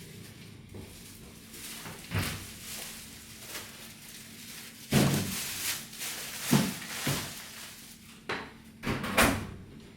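A series of knocks and thuds from household things being handled, like doors or drawers closing, about six of them, the loudest about five seconds in and another strong one near the end.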